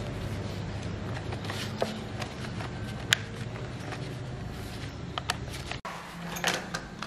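Scattered sharp clicks and plastic handling noises from gloved hands working on a Husqvarna 365 Special chainsaw's starter cover and its screws, over a steady low hum. The handling noises get busier near the end.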